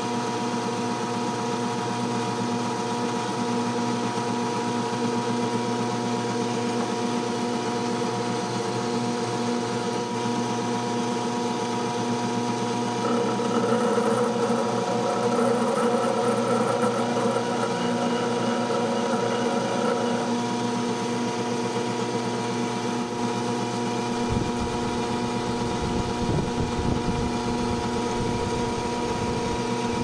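Electric motor of a lapidary faceting machine running steadily, spinning a diamond-powder polishing disc while a blue topaz is polished on it. The sound grows louder for several seconds about halfway through, and low knocks come in near the end.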